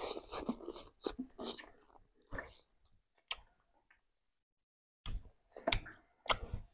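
Children slurping and chewing instant noodles in short irregular bursts, with a break of about a second in the middle and a few sharp clicks near the end.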